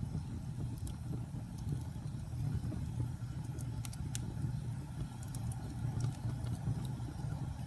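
Wood fire burning with a steady low rumble and scattered sharp crackles, a few close together about four seconds in.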